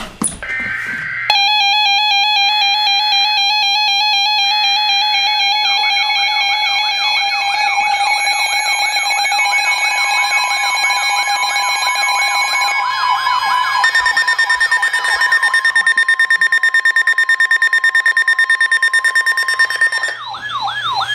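Layered electronic alarm tones. A steady alarm tone starts about a second in, with a second tone beeping on and off. From about six seconds a siren tone sweeps rapidly up and down, several times a second. Near the middle another steady tone joins and the sound pulses quickly.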